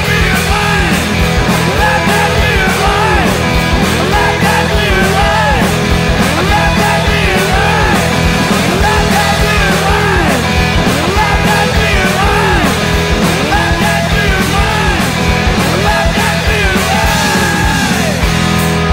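Loud rock band playing with drums, bass guitar and electric guitar. Steady driving drum hits and bass notes run under a sweeping rise-and-fall in pitch that repeats about once a second.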